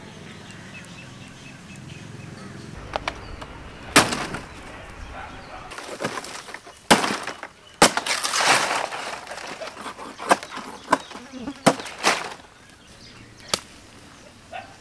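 A machete chopping and slicing a green palm-leaf stalk: about a dozen sharp cracks at irregular intervals from about three seconds in, with scratchy rustling of the leaf between them.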